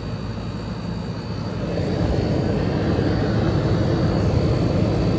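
1977 GE Superthrust window air conditioner running: a steady rush of fan air with a low hum, growing louder about two seconds in and then holding.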